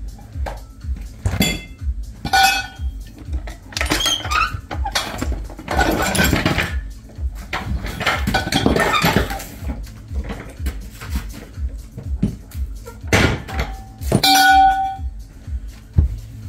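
Metal tools and parts clanking and clinking as they are handled, with scraping around six and nine seconds in and a ringing clang near the end, over background music with a steady low beat.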